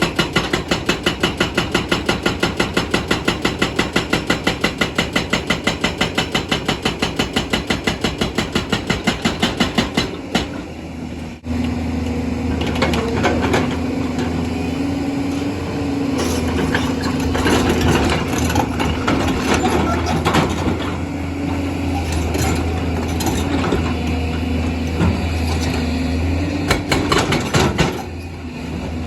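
JCB excavator at work on large stones. For about the first ten seconds there is a rapid, even pounding of about five blows a second. It stops, and then the diesel engine runs steadily with a sustained whine and scattered knocks and clatter.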